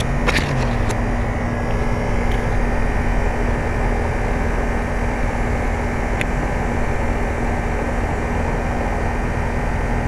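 2005 Carrier Infinity 2-ton heat pump outdoor unit running in heating mode: a steady compressor hum under the rush of its outdoor fan.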